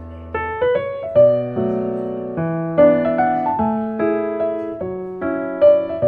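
Background piano music: a gentle melody over chords, each note struck and fading, with a new note or chord about every half second.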